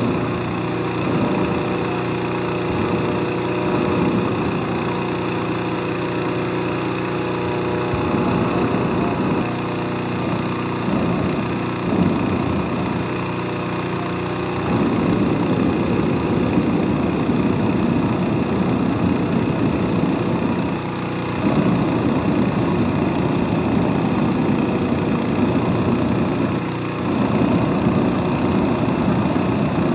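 Hot-air balloon propane burner firing into the envelope in repeated blasts, short ones in the first half and long, nearly continuous ones from about halfway on, heating the air to stand the balloon up. Under it the steady running of a small petrol engine, the balloon's inflator fan.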